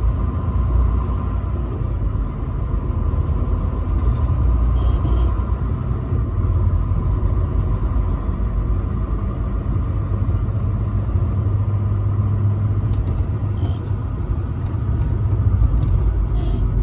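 Truck driving along the road: a steady low engine and road rumble, with a few faint clicks.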